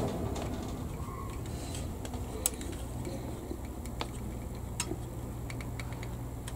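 A few light clicks and taps of plastic model-kit parts being handled and fitted together, the sharpest about two and a half and four seconds in, over a steady low hum.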